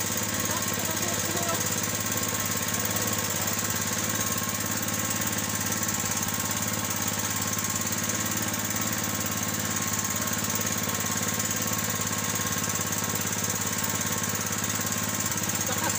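Outrigger fishing boat's engine running steadily at a constant pitch.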